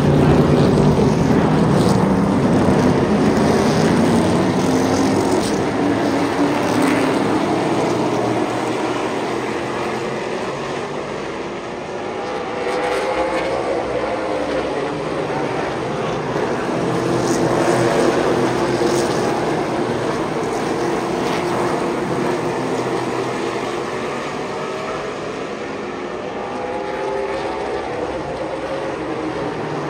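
Super late model stock cars' V8 engines running on the oval, the pitch bending and the sound swelling and fading as the field passes.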